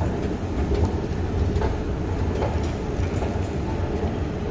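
Steady low mechanical rumble with a few faint, irregular clicks, the machinery sound of a deep underground railway station, from its escalators or a train.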